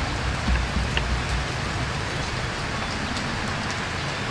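Steady rushing hiss like rain, with a few low thumps in the first second and a half.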